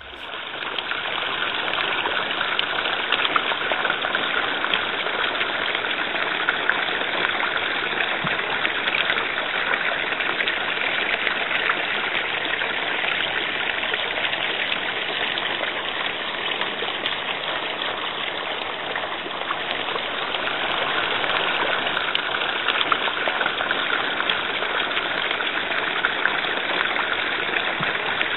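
Steady rushing water noise, an even hiss dense with small crackles.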